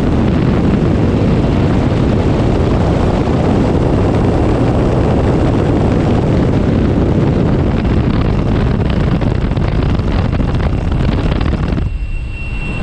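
Wind rushing past the open door of a small high-wing jump plane in flight, mixed with its engine noise: a loud, steady rush. About a second before the end it drops suddenly to a duller, quieter sound.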